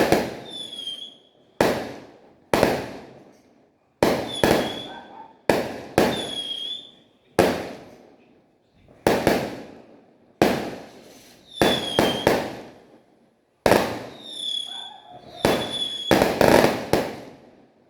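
Fireworks going off in a steady barrage: about fifteen sharp bangs, roughly one a second, each trailing off in an echo, several followed by short whistles.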